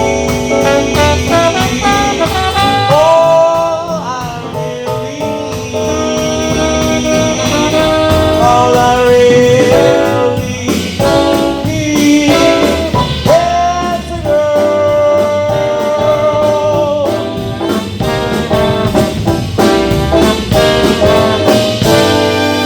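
Live swing band playing an instrumental passage of a vintage-style R&B song, with brass horns carrying held melodic lines over the rhythm section.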